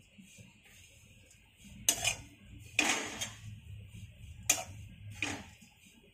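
Metal spatula scraping and knocking against a kadhai four times, stirring dried coconut as it dry-roasts.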